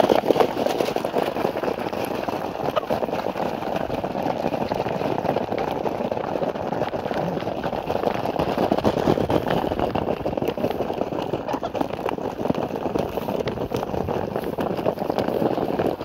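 A flock of chickens pecking grain off a corrugated sheet and plastic feed trays: a dense, continuous patter of beak taps.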